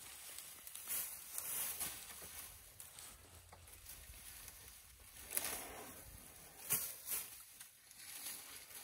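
An African elephant feeding at close range, pulling and eating dry grass and twigs with its trunk: short, scattered bursts of rustling and crunching vegetation.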